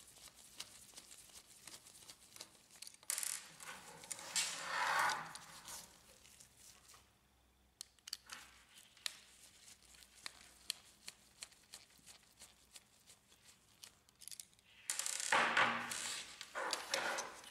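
Faint handling noise from a screwdriver working the heating-lamp screws on a laser printer's upper fuser roller assembly: scattered small clicks of metal and plastic, with a spell of rustling about three to five seconds in and another near the end.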